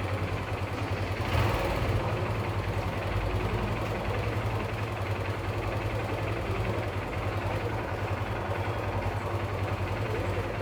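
Motorcycle engine idling steadily, with a brief swell in level about a second and a half in.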